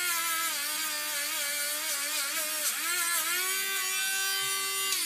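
Small handheld rotary tool running at speed against a freshly cast ring to polish it, a steady high whine that dips briefly in pitch about two and a half seconds in.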